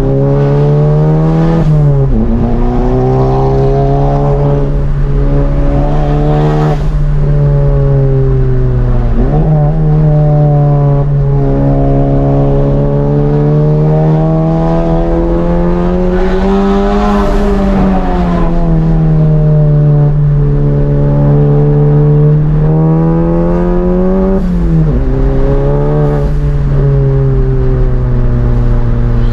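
Mk7 Volkswagen Golf's turbocharged 2.0-litre four-cylinder, with an aftermarket downpipe and cat-back exhaust, running hard under load. Its pitch climbs and then drops abruptly about four times.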